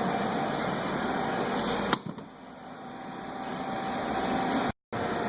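Steady fan-like background noise, broken by one sharp click about two seconds in, after which the noise drops and slowly builds again.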